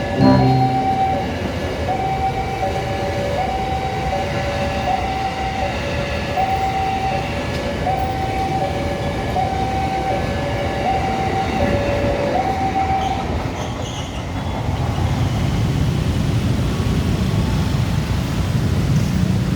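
A telolet multi-tone vehicle horn playing a two-note tune, switching back and forth between a higher and a lower note for about twelve seconds over steady traffic noise. It stops, and a heavier engine rumble grows near the end.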